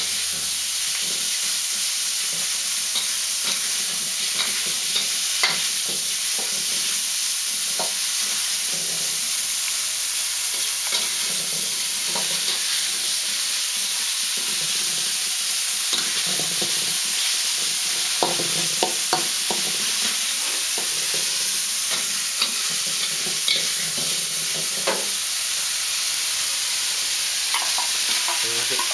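Beef sizzling as it is stir-fried in a wok, with a steady hiss, while a metal wok ladle scrapes and clicks against the pan now and then.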